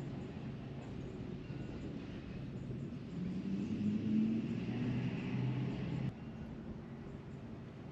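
A low, steady-pitched engine hum that grows louder about three seconds in, then cuts off abruptly about six seconds in, leaving only faint wind.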